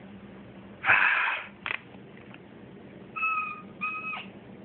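House cat vocalising: a short noisy, hiss-like burst about a second in, then two short calls near the end, each held on one pitch, the second dropping off at its end.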